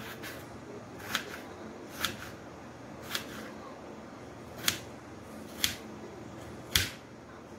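Kitchen knife slicing through a tomato and tapping on a cutting board: a sharp knock each time the blade meets the board, about once a second, the last one the loudest.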